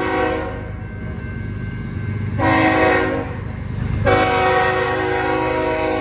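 BNSF diesel locomotive's multi-tone air horn sounding for a street crossing. One blast cuts off just after the start, a short toot comes about two and a half seconds in, and a long blast begins about four seconds in. Under it runs the low rumble of the locomotive as it approaches and passes close.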